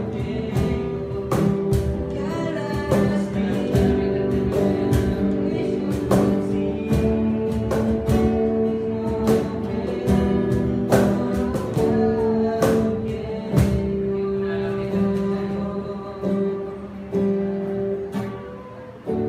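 Live worship song: acoustic guitar strumming, electric guitar and cajón beats under male and female voices singing together. The playing grows quieter over the last few seconds as the song winds down.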